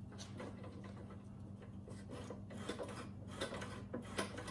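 Push mower's makeshift bail lever and its control cable being worked back and forth by hand: faint rubbing with scattered light clicks. The cable, freshly oiled after binding in its housing, now moves much better.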